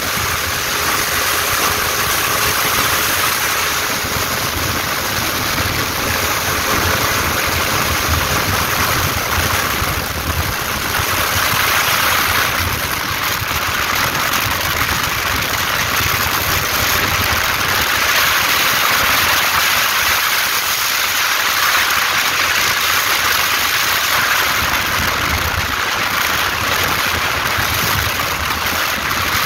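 Ultralight trike in flight: wind rushing over the microphone, with the trike's engine running steadily underneath.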